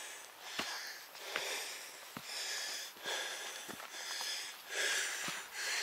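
A person breathing hard in quick, hissy breaths, one after another, while climbing a steep slope on foot, with a few soft footfall ticks between the breaths.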